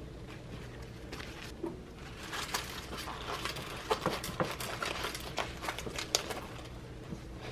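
Crisp collard green leaves rustling and crackling as they are stacked and rolled tightly against a cutting board, with a steady low hum underneath.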